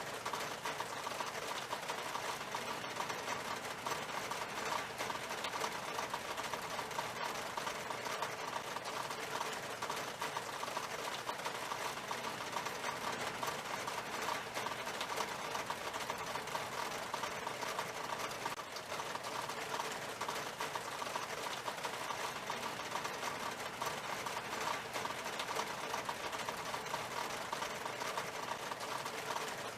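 Steady rain on window glass: a dense, even patter of drops.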